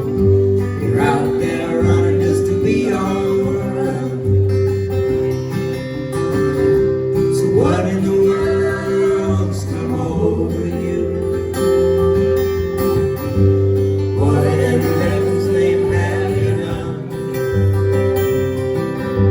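Acoustic guitars playing an instrumental break in a live folk-country song, strummed and picked over a steady held note.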